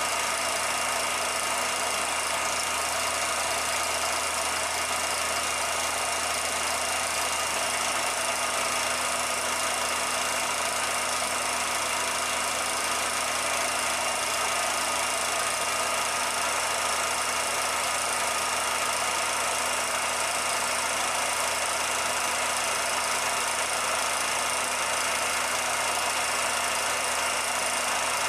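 16mm film projector running with a steady mechanical whirr and rattle, with a constant hum and hiss, unchanged throughout.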